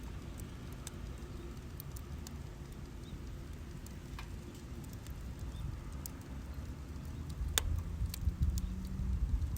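Wood fire burning in a fire pit, with scattered sharp crackles and pops over a low steady rumble and one louder snap late on.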